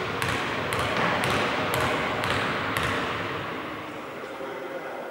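A basketball being bounced on the court floor by a player at the free-throw line before his shot, about two bounces a second, stopping about three seconds in.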